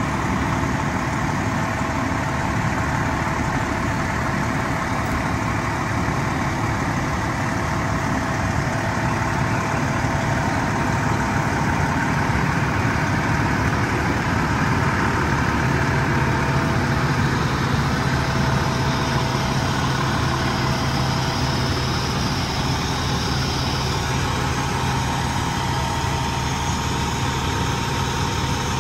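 Fire apparatus diesel engines idling steadily. A deeper steady hum joins about halfway through.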